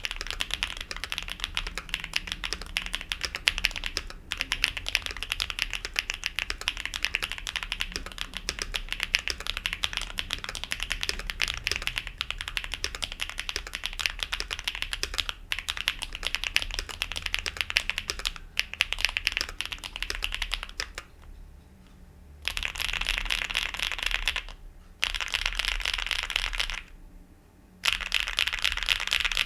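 Fast continuous typing on a mechanical keyboard with stock HMX Cheese linear switches in an aluminium case with a steel plate and no plate foam: a dense run of clacky keystrokes. Near the end it breaks into short bursts with two brief pauses.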